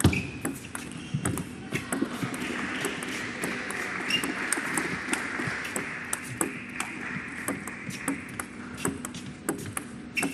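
Table tennis rally: the celluloid-type plastic ball clicking off the paddles and bouncing on the table, a few strikes each second in an uneven rhythm, in a long exchange against a chopping defender.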